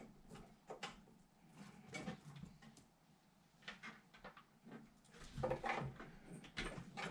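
Scattered clicks and knocks of parts and cables being handled and fitted inside a PC case, with a louder cluster of knocks about five to six seconds in.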